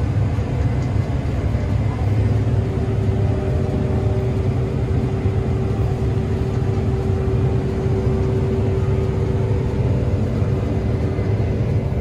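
New Holland combine running steadily under load while harvesting wheat, heard from inside the cab: a continuous low drone with a faint steady whine over it.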